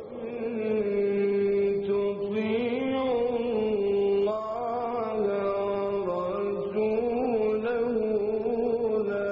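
Male Quran reciter's voice chanting in the melodic mujawwad style: one long, ornamented vocal line that wavers and turns around a held pitch.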